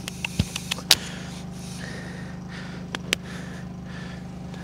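Scattered sharp metal clicks of a lead clip and harness being fastened on a dog: a quick cluster in the first second, then two more about three seconds in, over a steady low hum.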